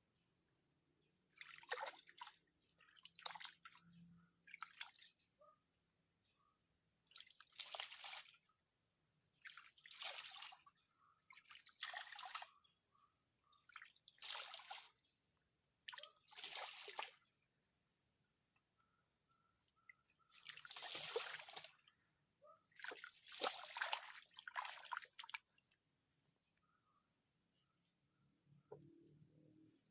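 Shallow river water splashing and sloshing in short, irregular surges about every second or two, as the water is stirred up to muddy it and draw fish in. A steady high chirring of crickets runs underneath.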